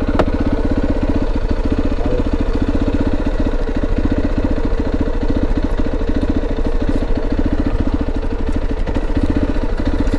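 Motorcycle engine idling steadily with an even, rapid pulse, plus a brief click right at the start.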